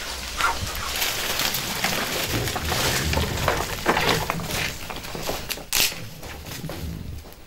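Dry twigs and brushwood crackling and rustling in a clay tandoor as they are fed onto glowing embers, with frequent sharp snaps.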